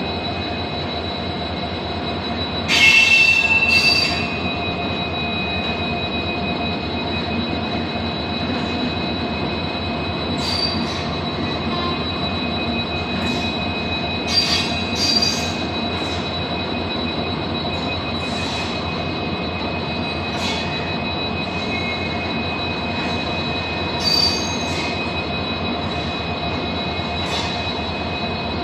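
Electric-hauled AC express passenger coaches rolling slowly through a station: a steady rumble of wheels on rail under a continuous thin squeal. Louder, brief screeches of the wheels come about three seconds in and a few more times later.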